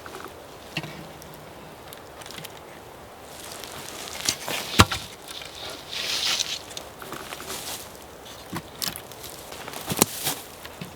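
Wooden sticks and poles being handled and knocked together, a few sharp separate knocks with rustling in between; the loudest knocks come about five and ten seconds in.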